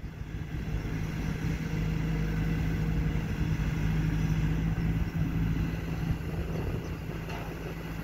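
Kobelco crawler excavator's diesel engine running steadily under power, a low rumble with a strong steady hum, rising a little in the first second as the machine works.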